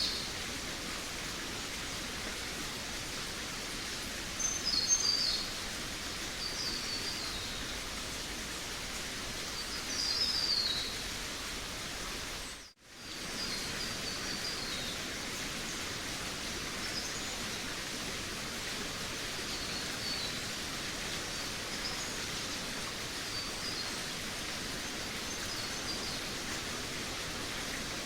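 Forest ambience: a steady hiss with songbirds singing short high chirps and trills over it, the loudest phrases about 5 and 10 seconds in and fainter ones scattered after. The sound dips out for a moment about 13 seconds in.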